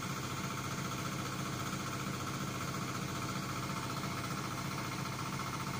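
Small generator engine running steadily at a constant speed.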